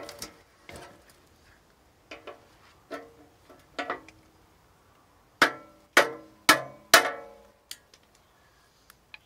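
Claw hammer striking a screwdriver held against the sheet-metal cover of a Siemens meter base, each blow ringing briefly in the metal, to punch out the screw-hole knockouts. Several lighter strikes come first, then four hard strikes about two a second past the middle, then a few faint taps.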